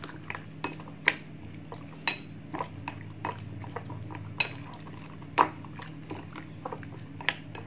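Chopsticks tapping and scraping against a glass bowl while mixing raw chicken wings in their seasoning: irregular clicks, a few with a short glassy ring, over a steady low hum.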